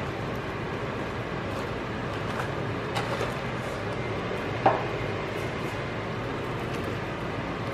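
Kitchen handling sounds: a few light knocks of a spoon and mug against foil pans and a pot, the loudest about halfway through, over a steady background hiss.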